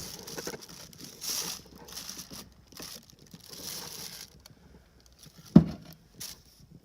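Rustling and scraping of engine parts being handled on a workbench, with one sharp knock near the end as a part is set down.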